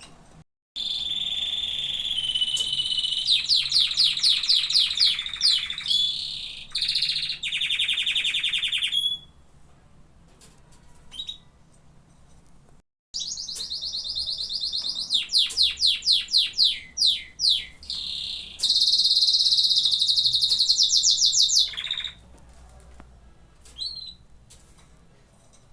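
Domestic canary singing: two long song phrases of held whistled notes and fast trills, each lasting about eight to nine seconds, with a few short faint chirps in the pause between them.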